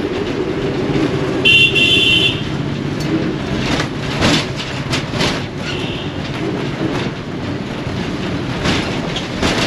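Old city bus heard from inside the cabin: steady engine and road rumble, with the body rattling and clattering. A horn toots about a second and a half in for under a second, and a fainter horn sounds around six seconds.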